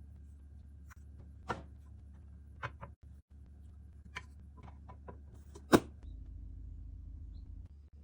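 Kitchen handling sounds: several light clicks and knocks, with one much louder knock about six seconds in, over a low steady hum.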